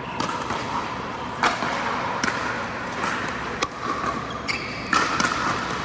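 Pickleball paddles hitting a plastic ball in a rally: a series of sharp pops at irregular intervals over steady background noise.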